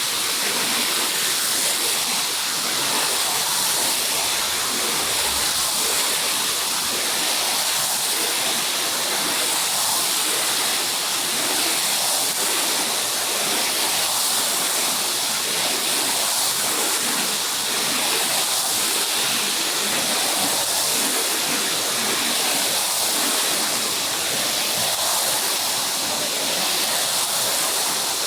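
Steady spray of water on a carpet being rinsed, a continuous even hiss.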